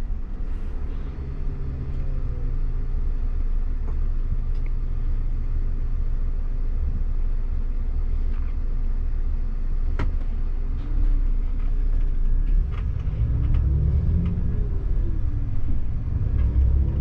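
VDL Futura coach's diesel engine and road rumble heard from inside the cab while driving. The engine note rises and falls a few times and gets a little louder in the second half.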